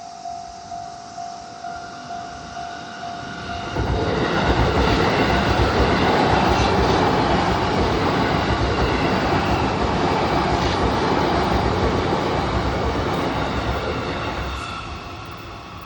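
Japanese level-crossing warning bell dinging about twice a second, then about four seconds in an electric train passes close over the crossing, loud and rumbling for about ten seconds before fading near the end, when the bell can be heard again.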